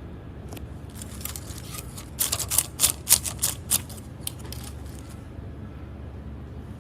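A quick irregular run of sharp clicks and taps, like small hard plastic pieces being handled, thickest about two to four seconds in, with a few single ticks before and after, over a faint steady low hum.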